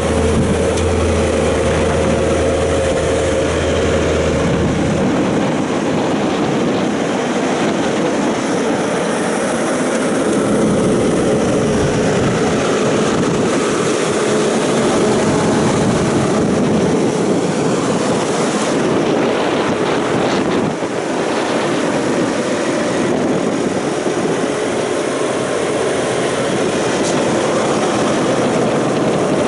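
Bobcat T770 skid steer's diesel engine running steadily, loud and continuous, with a deep low hum that drops away about four seconds in.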